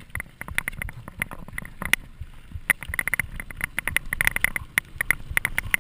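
Bicycle riding over a rough gravel and dirt track: a constant jumble of irregular clicks and rattles from the bike and its tyres on the stones.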